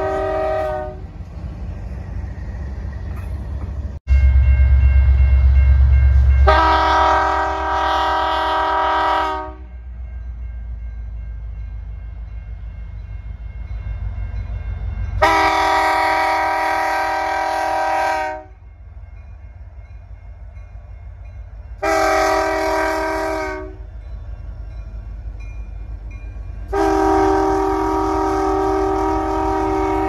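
Air horn of CN SD75i locomotive 5750 sounding a series of blasts of one multi-note chord: one trailing off about a second in, then long, long, short and long, the last held to the end. Underneath, the locomotive's diesel engine and wheels rumble, sharply louder for a couple of seconds from about four seconds in.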